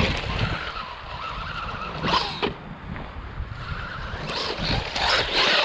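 Cheap RC car driving: its small motor whines, with bursts of tyres skidding and scrabbling over the ground about two seconds in and near the end. Wind rumbles on the microphone throughout.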